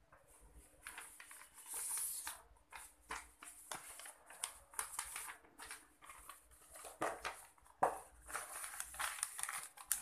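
Sheets of thick absorbent paper being folded and handled, rustling and crinkling in irregular bursts, with a couple of sharper knocks past the middle.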